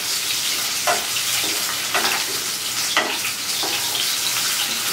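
Boiled potato pieces sizzling as they fry in hot oil in a nonstick kadai, with a spatula scraping against the pan and turning them every second or so.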